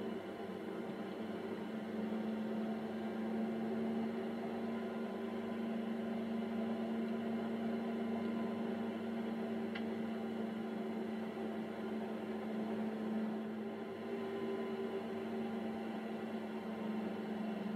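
Steady low hum with a clear pitch and a faint overtone, with a faint tick about ten seconds in.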